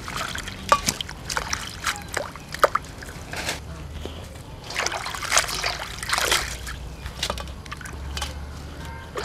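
Hands washing green vegetable stalks in water in a stainless steel basin: irregular sloshing and splashing with water trickling off as the greens are lifted, busiest about five to six and a half seconds in.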